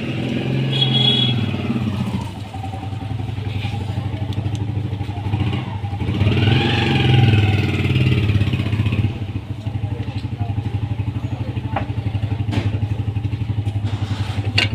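A small engine running with a steady low throb. It rises and falls in pitch about six to eight seconds in, then settles into an even, rapid putter.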